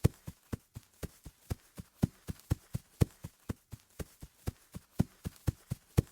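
Footsteps running on grass: quick, even thuds about four a second, with a heavier stomp roughly once a second.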